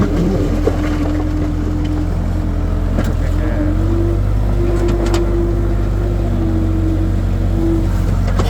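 Skid steer engine running steadily under work, with a strong tone that steps up and down in pitch a few times as the machine is loaded, and a few short knocks, about three and five seconds in.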